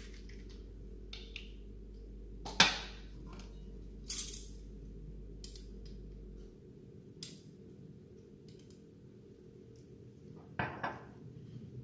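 Stainless steel measuring spoons clinking against each other and the steel double boiler while oil is measured out: a sharp clink about two and a half seconds in, another near four seconds, and a couple more near the end, over a low steady hum.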